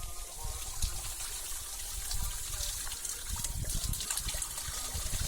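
Water trickling steadily, with irregular low rumbles underneath.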